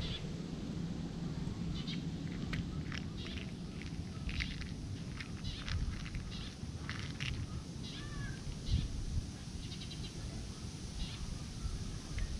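Outdoor ambience: a steady low rumble with scattered short, high clicks and chirps, and one brief whistled glide about eight seconds in.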